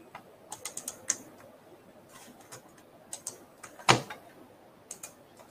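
Computer mouse and keyboard clicks: a scattering of short, sharp clicks at uneven intervals, with one louder click about four seconds in.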